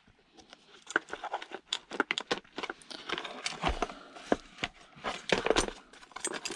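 Irregular clicks, knocks and metallic clinks of scrap metal parts and tools being handled during a teardown, with a few louder knocks in the second half.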